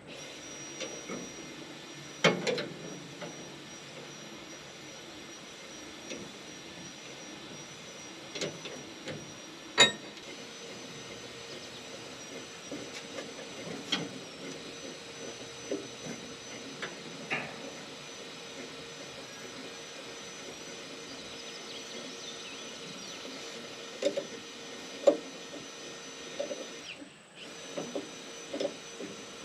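Scattered sharp knocks and clinks, like hand tools on metal, over a steady hiss.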